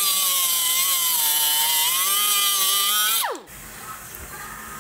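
Handheld cut-off tool with a small abrasive wheel cutting through an aluminium fuel rail. Its high whine dips and recovers in pitch as the wheel bites. About three seconds in the tool is let off and winds down in a quick falling whine.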